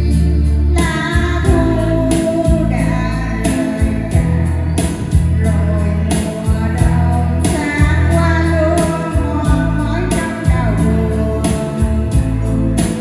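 A woman singing a Vietnamese song in long, held phrases over instrumental backing music with a steady bass.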